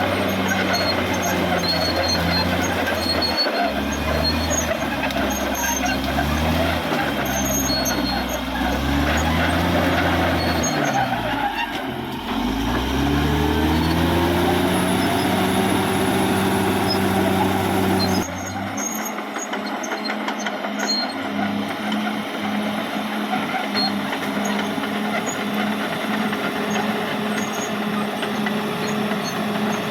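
Caterpillar D6R XL bulldozer working, its diesel engine revving up and down under load. About twelve seconds in the engine pitch drops and climbs again, and near eighteen seconds the sound changes abruptly to a steadier, thinner engine note.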